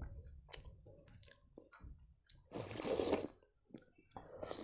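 Slurping soup from a small steel bowl held to the lips: two loud slurps, the second starting near the end, after soft mouth clicks.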